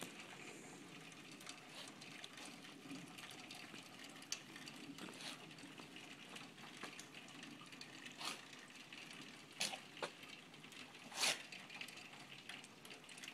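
Pet sneezing repeatedly: several short, sharp sneezes a few seconds apart, the loudest two around ten and eleven seconds in.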